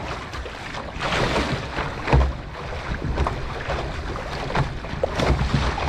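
Wind buffeting the microphone, with irregular low thumps, over water splashing and lapping against the hull of an outrigger canoe on choppy sea.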